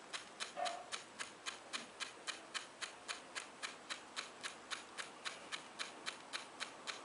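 Faint, steady ticking at an even pace, about four ticks a second.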